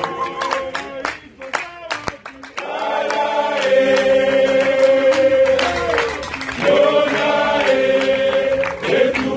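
A crowd singing together in chorus, holding two long notes in the second half.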